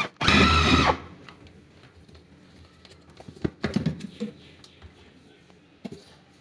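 Electric food chopper running in a short pulse, grinding chicken mince, its motor whirring and cutting off about a second in. After that, a few light clicks and knocks from its plastic lid being handled.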